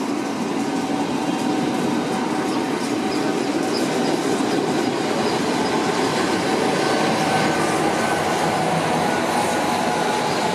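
A push-pull train of stainless-steel RIO passenger coaches passes close by, followed by its SNCF BB 25500 electric locomotive. The wheels rumble steadily on the rails, with a faint steady whine.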